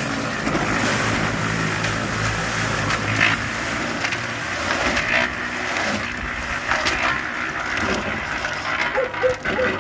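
Concrete mixer running, its drum turning a batch of sand-gravel-cement mortar with a steady drone, scraping and rattling as it goes: an old, worn mixer that squeaks and clatters but still turns.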